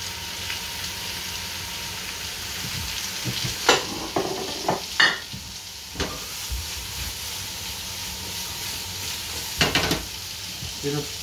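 Salmon pan-frying in hot oil, sizzling steadily, browned to a bronze colour. A few sharp knocks and clatters cut through the sizzle: a group around four to six seconds in and another near ten seconds.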